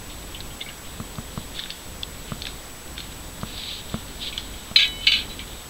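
Camp cookware being handled at a camp stove: scattered light clicks and knocks of enamel pot, mug and utensils, with a louder metallic clink twice near the end.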